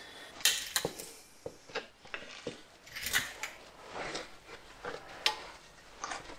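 Metal car parts being handled: a front wheel hub and brake disc assembly picked up and carried, giving a few scattered metallic clicks and light knocks, with rustling in between.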